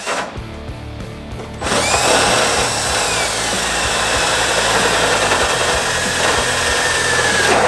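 Cordless drill driving a step drill bit through the sheet metal of a truck hood: the bit cuts with a steady grinding noise and a high squeal that drops a little in pitch, starting about two seconds in and stopping just before the end. Background music runs underneath.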